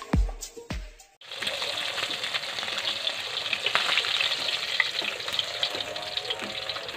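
A beat of intro music for about the first second, then a sudden cut to fish (balo, needlefish) frying in oil in a metal wok: a steady sizzle with crackles, stirred with a metal spatula.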